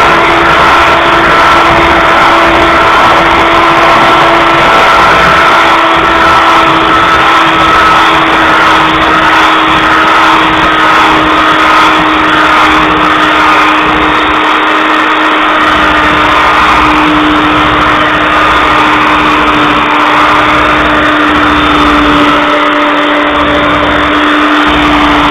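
Electric hand mixer running steadily, its beaters whirring through flour being beaten into a batter in a plastic bowl. The motor's whine holds one pitch that sinks slightly over the run.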